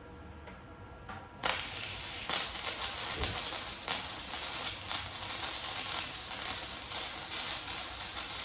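Chicago Electric welder's arc crackling as it welds steel square tubing, starting about a second and a half in and running on as a steady, dense crackle with sharp pops.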